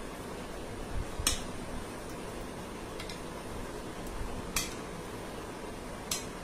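Metal spoon clinking against a ceramic bowl while stirring a thick pudding mixture: four clinks, about a second and a half apart, the loudest about a second in.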